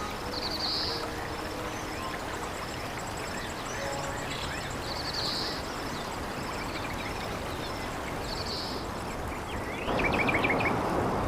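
Nature ambience: a steady rush of flowing water with birds chirping over it. About ten seconds in, the water noise suddenly becomes louder, with a burst of bird trills.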